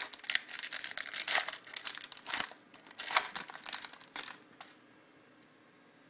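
Trading card pack wrapper being torn open and crinkled in the hands, a dense crackling that stops about four and a half seconds in.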